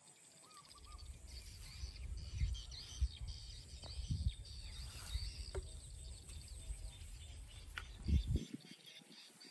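Outdoor ambience of birds chirping and calling, with a low rumble on the microphone that starts about a second in and cuts off suddenly near the end.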